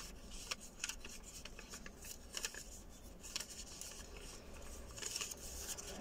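Sheet of paper being folded by hand into an origami flapping bird, crinkling faintly with scattered small crackles as a point is lifted and reverse-folded.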